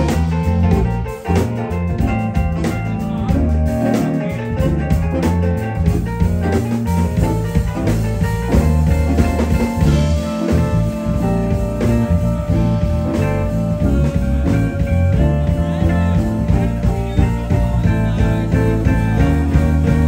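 Live band playing an instrumental groove: electric guitar, electric bass, drum kit and keyboard, playing steadily with no break.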